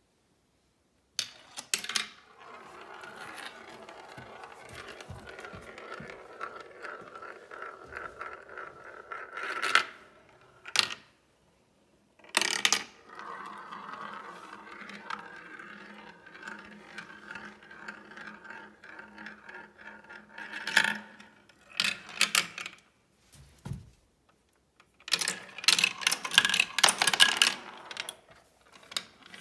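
Marbles rolling through a plastic marble run: sharp clicks as they drop between pieces, and two long steady rolling whirs as a marble circles a funnel bowl, the first swelling just before it drops out. Near the end comes a quick rattle of clicks as it runs through the twisting tubes.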